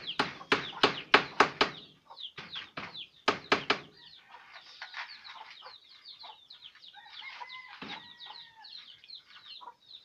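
A quick run of sharp knocks, about five a second, for the first two seconds and a few more just after. From about four seconds on, chickens are heard: many small high falling peeps of chicks, and a short clucking call near the end.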